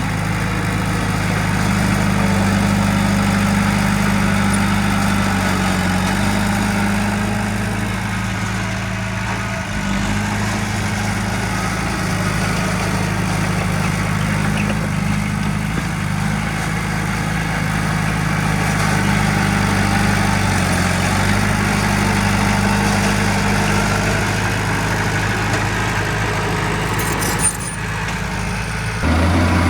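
Heavy diesel engine of earthmoving machinery running steadily at a low, even pitch, swelling and easing slightly; a brief sharp click near the end.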